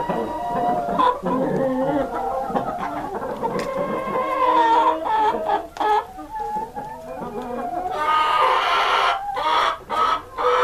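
A flock of Columbian Rock chickens clucking and calling over one another, with a longer, louder call about eight seconds in.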